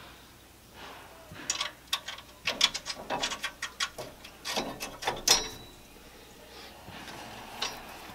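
Metal parts of a Weber gas grill's burner assembly being handled: runs of light metallic clicks and rattles as the burner tubes and fittings are worked by hand, starting about a second and a half in and dying away after about five seconds.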